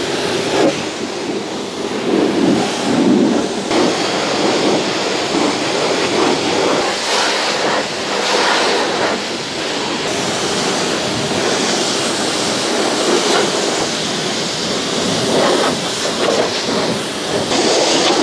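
Pressure washer jet spraying water against a tractor's front loader and steel bodywork: a steady rush of spray that swells and dips without a break.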